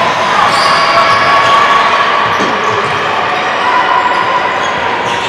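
Gymnasium ambience during a stoppage in a basketball game: a steady wash of room noise with a faint steady high tone running through it.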